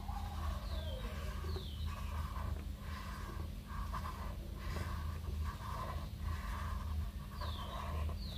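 Felt-tip marker scratching across paper in repeated back-and-forth colouring strokes, a little over one stroke a second, over a steady low hum.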